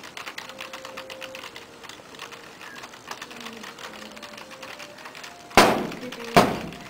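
Rapid typing on a computer keyboard, a steady patter of key clicks. About five and a half seconds in, two loud sharp bangs less than a second apart.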